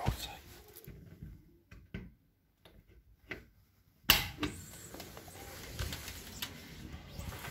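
Phone handling noise as the phone is carried around: a few soft clicks and knocks with near silence between them, then a sharp knock about four seconds in, after which a steady background rush sets in.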